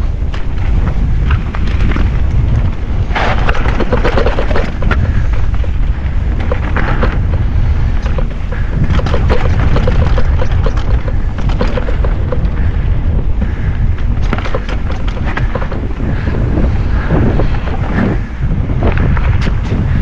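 Wind buffeting a GoPro's microphone during a fast mountain-bike descent, with the bike rattling and clattering over rough trail in quick, irregular knocks.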